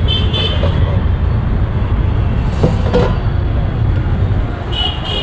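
City street traffic: a steady rumble of engines, with a short high horn toot at the start and another near the end, and a few sharp clicks in the middle.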